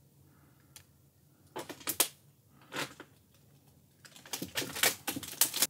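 Footsteps crunching and rustling through dry, dense undergrowth. A few single crunches come first, then a quick run of them near the end that stops suddenly.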